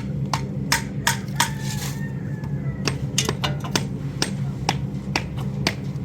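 Hammer striking in quick, slightly uneven blows, about two to three a second with a short pause about two seconds in, over a steady low hum.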